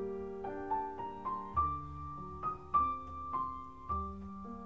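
Slow solo piano: single melody notes struck one after another, climbing in pitch, over held low bass notes.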